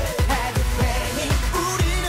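Korean pop dance track playing: male voices singing over a steady drum beat and bass.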